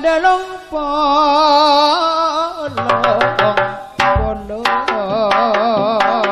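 Madurese gamelan (karawitan) music: a woman's voice holds a long note with vibrato, then, about three seconds in, kendang hand-drum strokes and struck gamelan metal keys come in, with a deep drum thump near four seconds, and the ensemble plays on.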